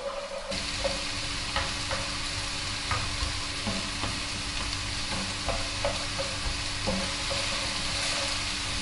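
Diced onion and carrot sizzling in oil in a wide nonstick pan as a soffritto softens, stirred with a wooden spatula that scrapes and knocks lightly against the pan. The sizzle grows a little louder about half a second in.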